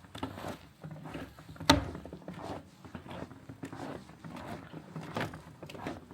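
Footsteps crunching in snow at a walking pace, with one sharper, louder crunch a little under two seconds in.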